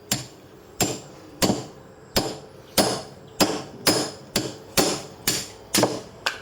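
A hand tool striking a block of agarwood about a dozen times, roughly one and a half strikes a second and a little faster near the end, each strike sharp with a brief metallic ring, as the white wood is chipped away from the block.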